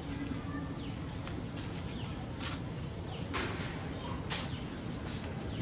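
Outdoor tree-canopy ambience: a steady high-pitched whine over a low background rumble, with three short rustling noises about two and a half, three and a half and four and a half seconds in.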